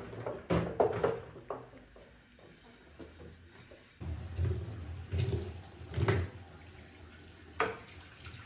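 Kitchen sink sounds: water running from a tap, with a few short knocks early on and sharp clinks about six seconds in and near the end, like dishes or utensils handled in the sink.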